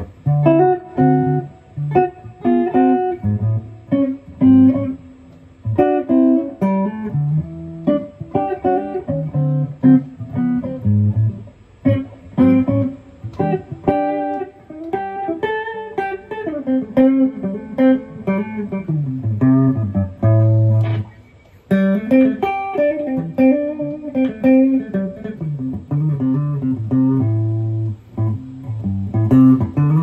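Baker B1 electric guitar with humbucking pickups being played: a melodic run of picked single notes and chords, with some notes bending in pitch and a low note held briefly about two-thirds of the way through.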